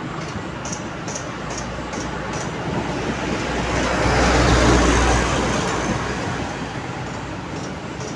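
A motor vehicle passing on the road over steady traffic noise: a low rumble that swells to its loudest about four to five seconds in and then fades. Light, high clicks come two or three times a second in the first half and again near the end.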